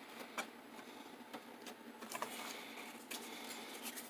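Faint scattered clicks and light taps of hand tools shifting and being handled in a metal toolbox drawer, over low hiss.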